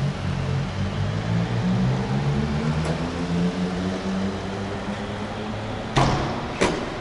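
Street traffic: a van's engine running low and steady as it drives along the road, its pitch drifting slightly. Two sharp knocks, about half a second apart, come near the end.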